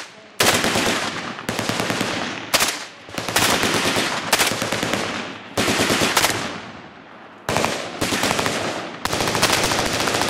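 MP5-style submachine gun firing on full automatic in a string of short bursts, about seven, each a rapid run of shots with brief pauses between.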